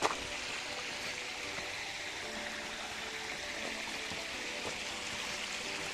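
Water of a waterfall stream flowing over rocks with a steady, even rush.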